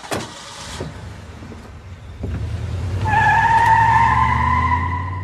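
A sharp knock like a car door shutting, then a car engine starts to run and the car pulls away with a loud, steady tire squeal from about three seconds in, fading toward the end.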